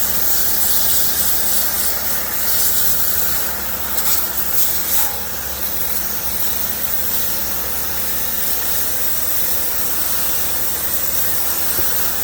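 High-pressure water spray hissing steadily while washing an air conditioner's cooling fins, with a motor humming underneath.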